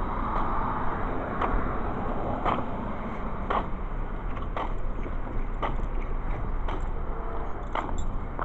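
Car engine idling with a steady low rumble, heard from inside the vehicle, with a sharp click repeating evenly about once a second.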